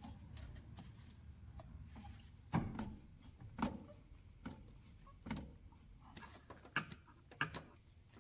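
Faint, irregular metallic clicks and knocks of needle-nose pliers working a spring hose clamp on a heater hose, about six separate ticks a second or so apart.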